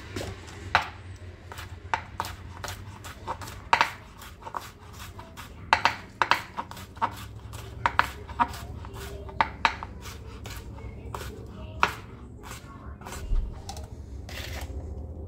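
Chef's knife slicing a cucumber into rounds on a plastic cutting board: a long run of irregular sharp knocks, about two or three a second, as the blade strikes the board.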